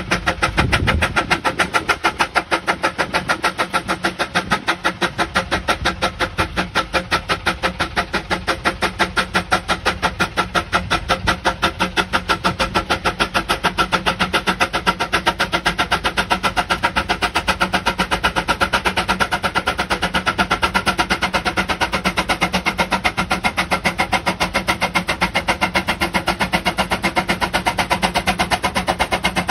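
Farquhar steam traction engine working under load while pulling a plow, its exhaust chuffing in a quick, even beat.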